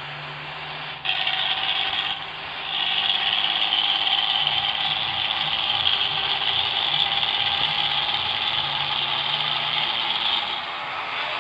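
Bus engine and exhaust running, with a strong hiss over the low engine note. It jumps louder about a second in and again at about three seconds, then holds steady.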